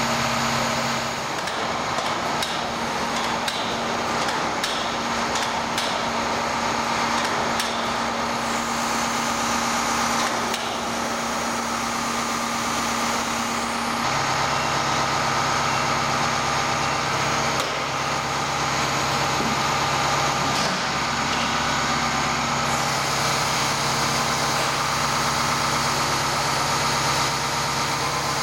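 Heavy machinery running steadily, a continuous drone with a low hum that drops in pitch about halfway through, while a crane sets a heavy furnace onto a low-loader trailer.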